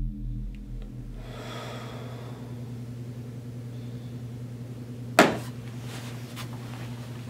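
Music fades out in the first second, leaving a steady low hum with faint hiss. About five seconds in comes one sharp knock, the loudest sound.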